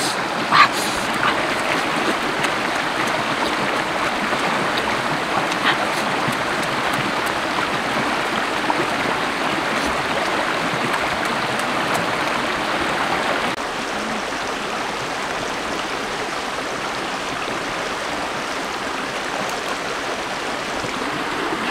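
Shallow rocky stream rushing and burbling steadily over stones. The rush drops slightly in level about two-thirds of the way through.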